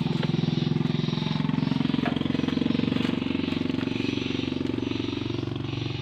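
Small motorcycle engine running steadily, its pitch and loudness swelling a little around two to three seconds in and easing off afterward.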